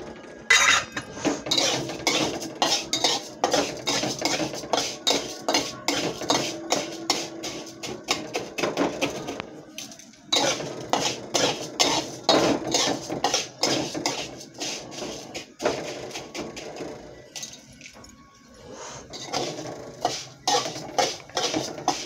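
Flat steel spatula scraping and clinking against a small steel kadhai in quick, repeated strokes as fenugreek seeds are stirred while roasting in a little oil. The strokes pause briefly about ten seconds in and again for a couple of seconds in the last quarter.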